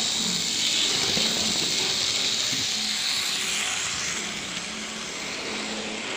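HO-scale Tyco model locomotives, a Santa Fe F7 and a Burlington GP20, running together on the track: a steady high-pitched whirring hiss of their motors and wheels on the rails, which fades about four seconds in as they pull away.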